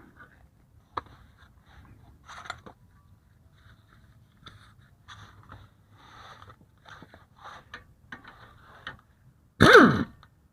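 Hand tools tightening a bolt on a Jeep's rear suspension: faint, scattered clicks and short scrapes of metal tool on fastener. Near the end comes one short, loud sound that falls sharply in pitch.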